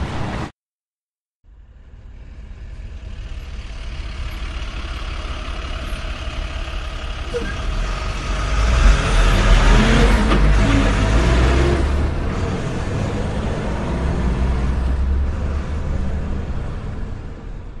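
Motor vehicle running with a deep rumble. It fades in after a brief silence, grows louder towards the middle, then holds steady.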